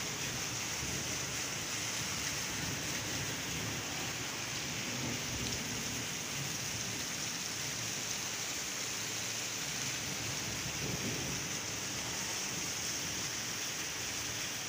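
Heavy, wind-driven rain pouring steadily in a storm, a dense even hiss with no breaks.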